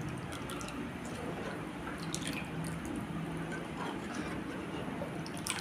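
Steel ladle stirring a thick curry in a steel kadai: liquid sloshing and dripping over a steady low hiss, with a few short clicks of the ladle against the pan.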